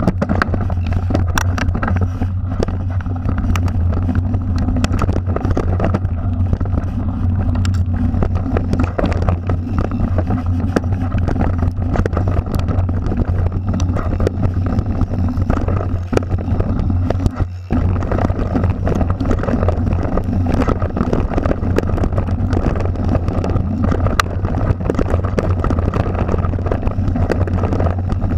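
Mountain bike riding down a rocky dirt trail: a steady low rumble and rattle from the bike and its mounted camera, with many sharp clicks and knocks as the wheels hit rocks, and wind on the microphone. The noise dips briefly a little past the middle.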